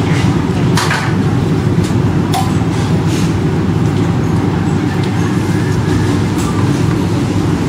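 Steady low rumble of a busy food-stall kitchen, with a few light clinks of metal utensils and bowls.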